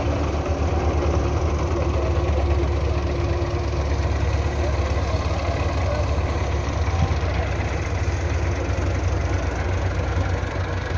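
Belarus tractor's diesel engine idling steadily.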